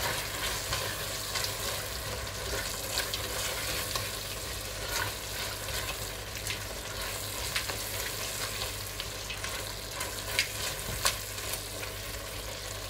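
Onion, tomato and spice masala sizzling in a stainless steel pot as a spatula stirs it, with many small scrapes and taps of the spatula against the pot.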